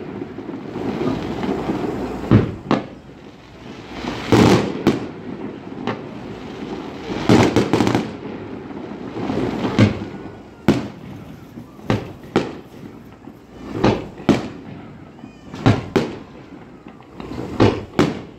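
Aerial firework shells bursting in a steady succession: sharp bangs every second or two, some in quick pairs, with crackling between them.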